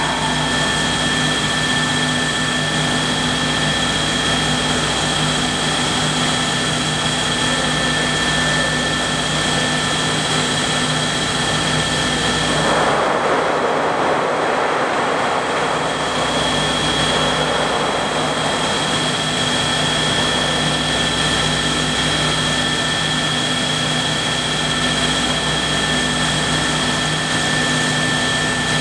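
Steady machinery hum in an olive mill, with several steady tones. About thirteen seconds in, freshly harvested green olives pour from a tipped crate into a stainless-steel hopper, a rushing rattle that lasts about three seconds.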